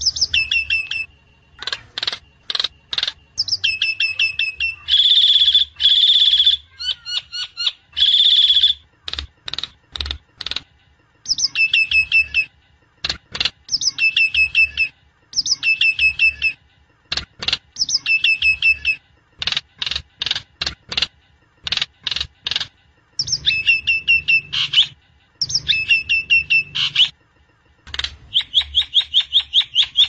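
Myna (sáo đen) calling in repeated bursts: rapid sharp clicks and quick whistled phrases that drop in pitch, with a few loud, harsh, raspy calls about a quarter of the way in.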